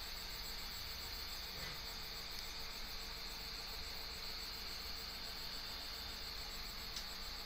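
Portabee 3D printer's extruder head running while it pushes filament out of the hotend nozzle: a steady high-pitched whine over a faint hiss, with a small tick near the end.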